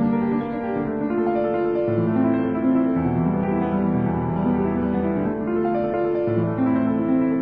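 Slow instrumental background music: sustained chords that change every second or so.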